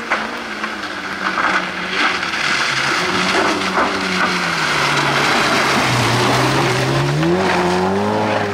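Classic rally car coming closer at speed, its engine note falling as it comes off the throttle and then climbing sharply as it accelerates again near the end, with tyre noise growing as it nears.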